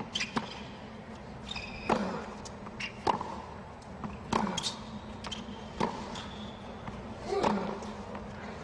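Tennis rally on a hard court: a tennis ball struck back and forth by rackets, a sharp hit about every one and a half seconds, with short high-pitched shoe squeaks between some of the shots.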